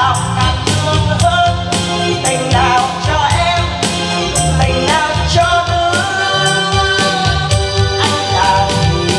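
A woman singing into a handheld microphone over upbeat backing music with a steady drum beat, about two beats a second.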